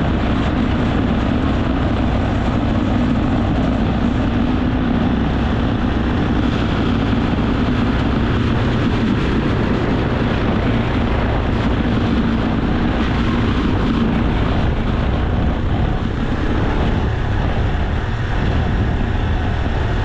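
ATV (four-wheeler) engine running steadily under way as it is driven across a field, with a constant drone and low rumble.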